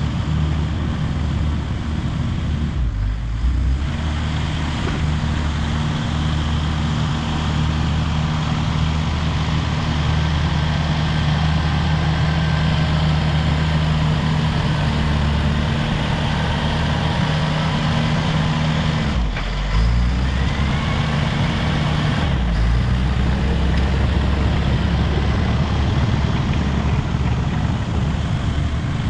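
Caterpillar D5 wide-track bulldozer's diesel engine running under working load, a steady low drone whose note dips briefly a few seconds in and again about two-thirds of the way through.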